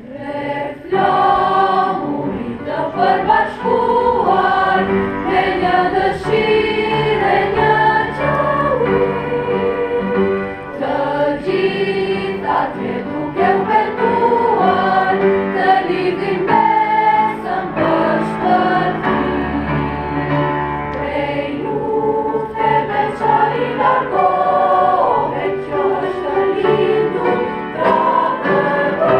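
A school choir singing together under a conductor, many voices at once, coming in about a second in and carrying on steadily.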